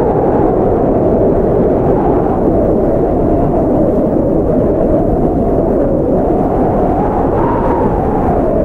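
Blizzard wind blowing steadily, a deep rushing noise with a hollow whistle that slowly drifts up and down in pitch and rises near the end.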